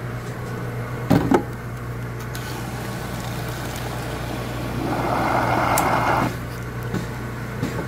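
Blue syrup pouring from a Slurpee machine barrel's dispensing valve into a tub, loudest for about a second and a half past the middle, over the machine's steady hum. A couple of knocks about a second in.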